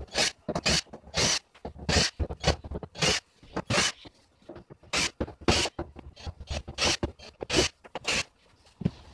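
Repeated short scraping, rasping bursts, irregular at one or two a second, from screws being worked out of the plastic back cover of an LED TV with a screwdriver.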